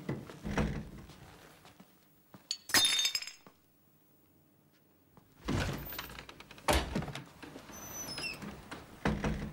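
A series of thumps and knocks with a louder clattering crash about three seconds in, then a pause of near silence, then more thuds.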